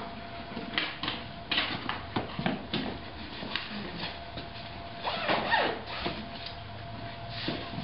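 Scattered clicks, knocks and rustles of grooming gear and tack being handled beside a horse on a concrete barn aisle, with a brief falling pitched sound a little past halfway and a faint steady hum underneath.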